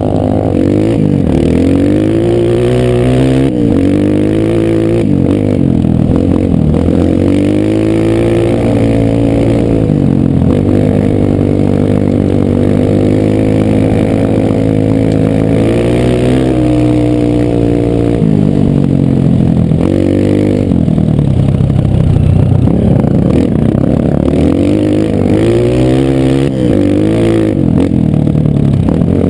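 Single-cylinder four-stroke dirt bike engine under way off-road, its pitch rising and falling over and over as the rider opens and closes the throttle and shifts gears.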